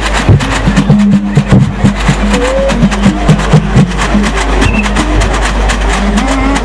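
Live West African dance music: fast, dense rattling and drum strokes, with the dancers' bundled shin rattles shaking in time, over a low melody stepping between short held notes.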